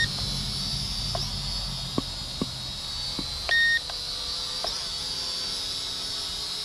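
Kaptur GPS II quadcopter drone hovering, its propellers giving a steady high whine. A short electronic beep sounds at the start and again about three and a half seconds in.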